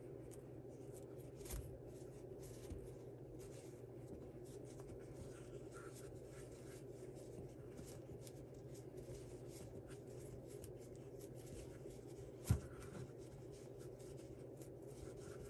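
Faint rubbing and light scratching of hands and a crochet hook working the looped edge of a woven potholder, with a steady low hum underneath. A single sharp click about twelve seconds in.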